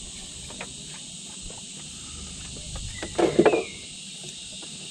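Steady high buzzing of insects in the background, with a short loud noise a little after three seconds in.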